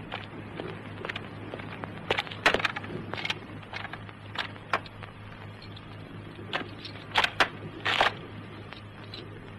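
Irregular sharp knocks and clicks, several of them close together, over a steady low hum.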